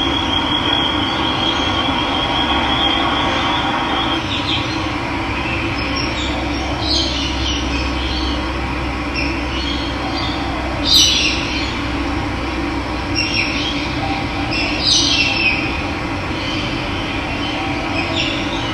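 Steady rush of running water with wild birds chirping over it in short calls, the loudest about eleven seconds in. A thin, high steady trill sounds for the first four seconds.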